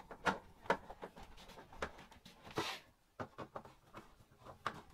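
Light clicks and taps of the add-on blind's top hooks being worked into the gap at the top of a door's glass frame, with a brief scrape about two and a half seconds in.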